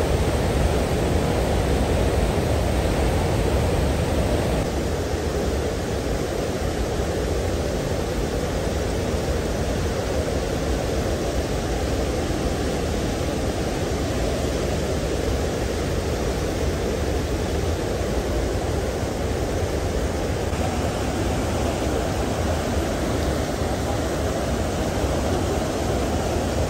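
Ruiru River in flood, over its banks: muddy floodwater rushing and churning in a steady low rushing noise.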